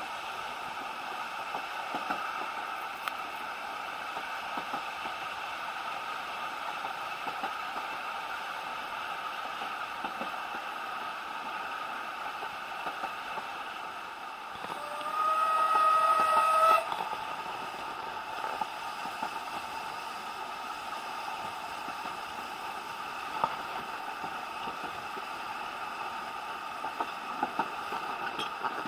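Steady running noise of a narrow-gauge steam railway carriage heard from inside, with small clicks from the wheels on the track. Just past halfway the steam locomotive's whistle sounds once, loudly, for about two seconds.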